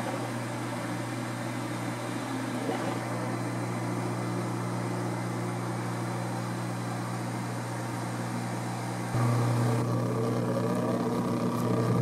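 Compact washing machine's drain pump running with a steady low hum as it pumps out the wash water, which the owner calls quiet. About nine seconds in the hum suddenly gets louder and slightly higher.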